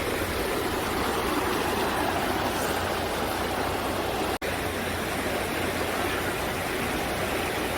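Valley stream rushing steadily, its flow swollen after a night of rain. The sound drops out for an instant about halfway through.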